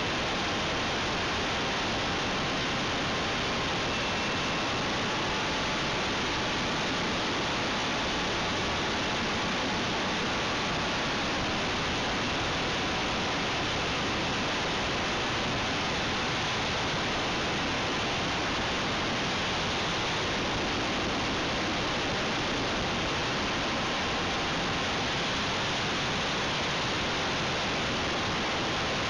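Steady rushing noise of airflow and propeller on the microphone of a camcorder flying aboard an RC aircraft in flight, with a faint whine that fades out about a third of the way through.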